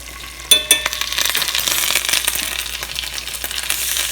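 A sharp ringing metal clink about half a second in, then minced garlic sizzling and crackling in hot melted butter, the sizzle growing louder.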